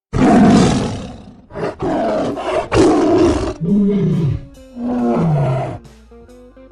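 Loud animal roars: three rough, harsh calls, then two lower, pitched calls that each arch and fall in pitch. Guitar music starts near the end.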